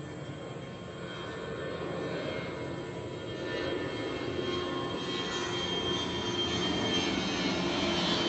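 A steady engine noise with a high whine in it, growing steadily louder throughout.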